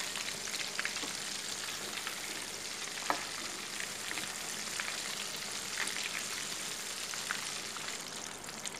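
Chicken nuggets coated in crushed oats deep-frying in hot oil in a steel kadhai over a medium flame: a steady sizzle with scattered crackles and a few louder pops.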